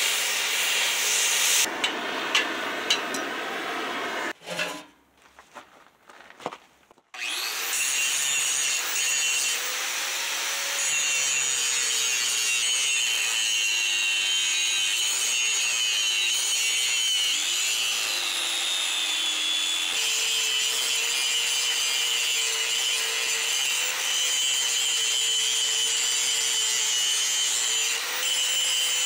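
Handheld power grinder working over the rear axle housing, cleaning it up. Its motor pitch wavers as it bears on the metal. It stops about four seconds in and starts again a few seconds later.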